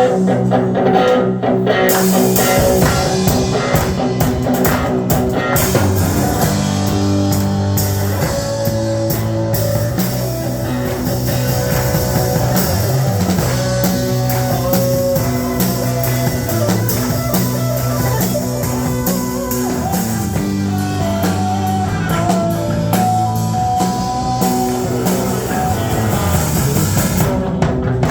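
Worship band music: guitar over bass notes and a drum kit, playing an instrumental Christian chorus with no singing.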